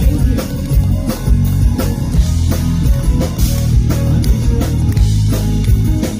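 Live band music in an acoustic arrangement: guitar and bass over a drum kit keeping a steady beat.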